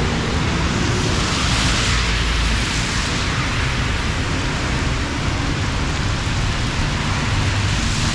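Heavy rain pouring down in a steady hiss, with a low rumble of passing road traffic underneath.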